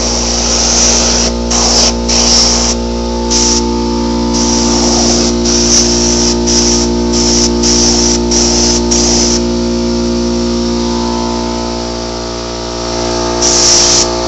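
Paint spray gun hissing in short bursts as the trigger is pulled and released, about a dozen quick sprays in a row, then a pause and one more spray near the end.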